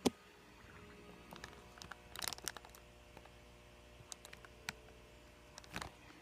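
Handling noise from a phone being moved while filming: a sharp click at the start, then scattered clicks and rubbing, bunched about two seconds in and again near the end, over a faint steady hum.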